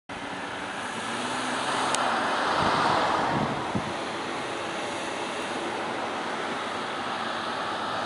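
Steady road traffic noise, swelling as a vehicle goes by about two to three seconds in.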